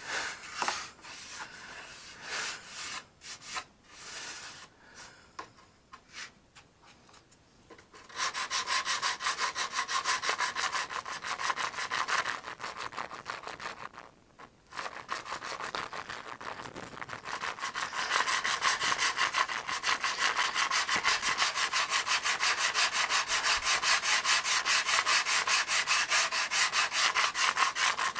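Hand sanding a hardened filler wing fillet on a balsa model airplane with sandpaper. There are scattered strokes at first, then quick, steady back-and-forth rubbing from about a third of the way in, with one brief pause. The filler is being smoothed and feathered into the surrounding wood.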